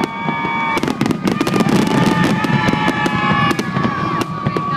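Fireworks going off in rapid succession: a dense run of sharp pops and crackles, with steady high whistling tones held underneath.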